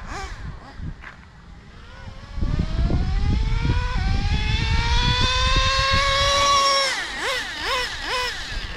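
Traxxas Slayer Pro 3.3's two-stroke nitro engine: quiet at first, then opening up about two seconds in and climbing steadily in pitch as the truck accelerates, over a low rumble. Near the end the throttle is blipped, the pitch dropping and snapping back up about three times.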